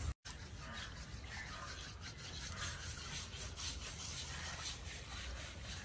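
An elephant's hide being scrubbed with coconut husk and stone, a run of repeated rasping strokes.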